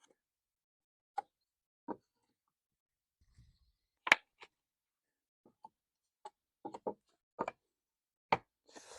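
Pallet wood boards knocking and tapping as they are handled and set down: about ten separate knocks spread out irregularly, the loudest about four seconds in.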